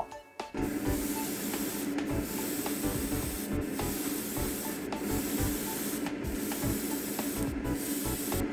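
Airbrush spraying GSI Creos Mr. Color SM203 Super Iron metallic paint at about 0.1–0.15 MPa. It gives a steady hiss of air and paint that starts about half a second in and breaks off briefly five times as the trigger is let go between light passes. A steady low hum runs underneath.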